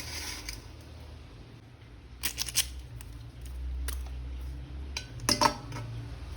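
Toy packaging being handled and opened by hand: two clusters of short, crisp clicks and crackles about three seconds apart, over a faint low hum.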